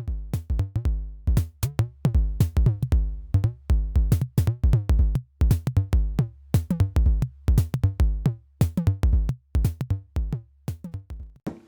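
Electronic background music with a quick drum-machine beat over a steady deep bass.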